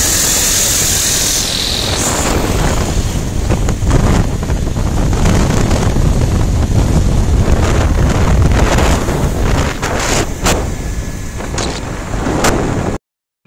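Wind buffeting the microphone over the rumble of road and engine noise from a moving vehicle, with a few short knocks. The sound cuts off abruptly near the end.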